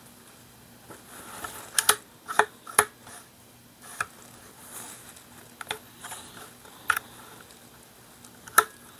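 Scattered sharp clicks and clacks from the parts of a partly disassembled Rossi Gallery .22 LR pump-action rifle being handled, as the bolt and action parts are shifted and fitted in the receiver; about eight clicks at irregular intervals.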